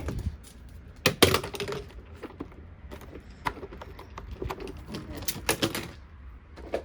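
Plastic vacuum-cleaner parts being handled and pulled apart by hand: a series of irregular clicks, knocks and rattles, loudest about a second in and again near five and a half seconds in.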